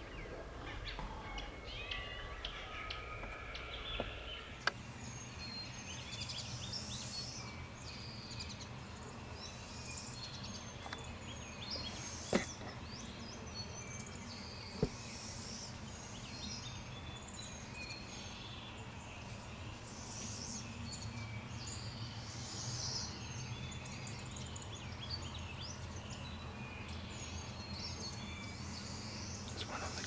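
Wild songbirds chirping and calling, many short high calls over a steady outdoor background. Three sharp clicks stand out in the first half.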